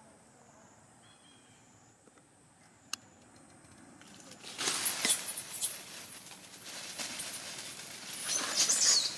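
Dry fallen leaves rustling and crackling as a monkey moves through leaf litter, in two loud spells: one starting about four and a half seconds in and one near the end. Before that it is faint, with a single sharp click about three seconds in.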